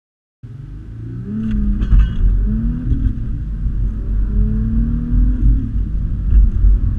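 Audi A5 3.0 TDI V6 diesel, tuned to 333 PS, accelerating hard under full throttle, heard from inside the cabin: a deep rumble with an engine note that climbs steadily. It starts about half a second in, after a moment of silence.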